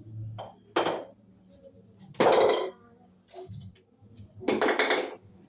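Kitchenware clattering as it is handled: three short clanks or scrapes a second or two apart.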